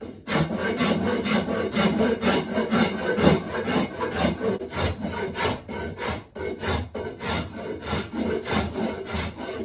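Big coarse file rasping fast and hard across a hickory axe handle, about three strokes a second, taking off bulk wood to thin the handle.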